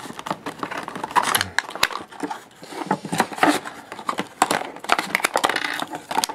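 Stiff clear plastic blister packaging crinkling and crackling as it is pried apart by hand, with irregular sharp clicks and taps as the die-cast toy monster truck is pulled out and set down.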